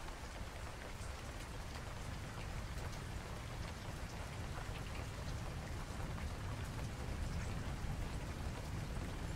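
Steady outdoor noise: an even hiss with a fluttering low rumble of wind on the microphone.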